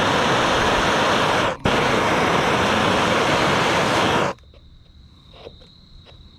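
Bernzomatic trigger-start propane torch burning with a steady loud hissing flame, breaking off for a moment about a second and a half in and then shut off about four seconds in.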